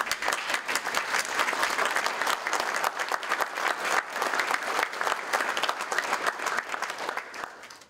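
Congregation applauding, dying away near the end.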